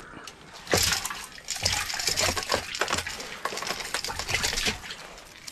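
Water splashing and sloshing, in irregular bursts.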